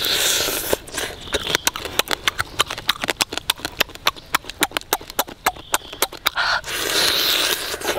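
Someone eating cooked crab by hand: rapid, irregular wet lip-smacking and chewing clicks, several a second, with two longer breathy slurps, one at the start and one about seven seconds in.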